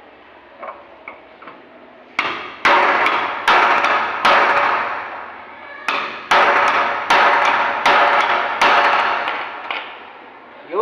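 A hammer striking the white metal channel at the base of a glass panel, about ten sharp blows roughly every 0.7 s starting about two seconds in, each ringing out briefly. The channel is being knocked loose so it can be taken off.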